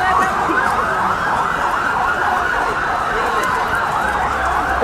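Police vehicle sirens yelping, fast repeated rising-and-falling wails with more than one siren overlapping, steady and loud.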